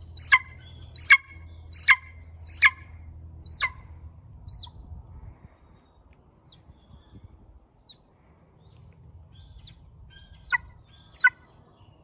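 Golden eagle calling: a series of short, sharp, high yelps that drop steeply in pitch, about one every three-quarters of a second. The calls thin out to a few faint ones in the middle and come back loud near the end.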